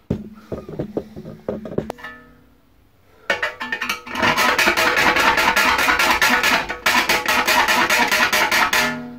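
Small square file worked back and forth by hand in a small square hole in sheet steel clamped in a vise, the thin plate ringing with each stroke. A few separate strokes first, a short pause, then from about three seconds in a fast, even run of about seven strokes a second that stops near the end.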